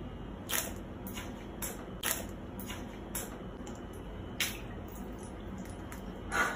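A few faint, soft clicks over quiet room tone, about one every half second at first, then two more spaced farther apart.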